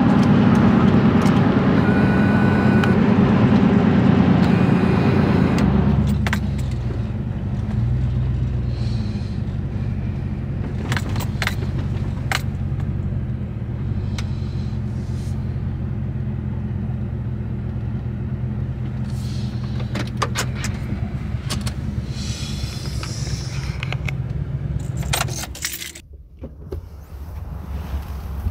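Inside a Chevrolet pickup's cab: loud, steady road and engine noise while driving on the highway, then after about six seconds a quieter, steady engine hum with scattered clicks and rattles. Near the end the hum drops away and a few sharp clicks follow.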